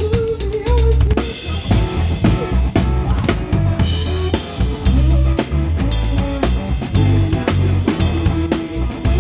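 A live band playing, heard from right beside the drum kit: sharp, frequent snare, kick and cymbal hits sit loudest over deep sustained bass notes and the other instruments.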